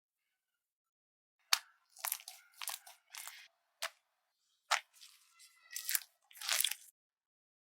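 Slime being pressed and squeezed by hand, giving irregular sharp clicks and short crackly bursts that begin about a second and a half in and stop shortly before the end.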